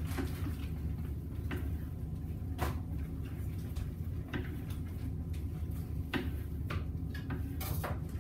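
A slicing knife cutting deboned ham against the grain, with a handful of short knocks and scrapes as the blade goes through and meets the board, over a steady low hum.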